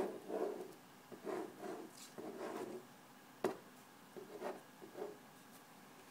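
Felt-tip marker drawing on paper, making short scratchy strokes in irregular bursts. A single sharp tap comes about three and a half seconds in.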